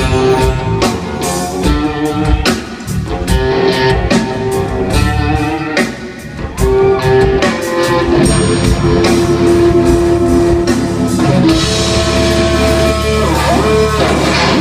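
Live rock band playing an instrumental passage: electric guitar holding and bending notes over drum kit.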